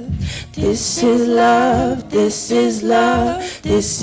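Female vocals singing a gospel song through microphones, in several short phrases with brief breaks between them.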